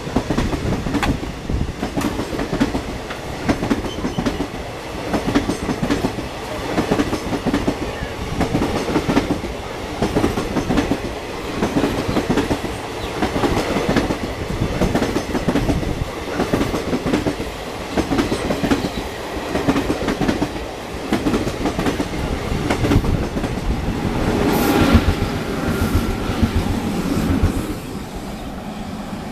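Passenger train coaches rolling past, their wheels clattering rhythmically over the rail joints. The clatter swells louder about 25 seconds in, then drops off sharply near the end.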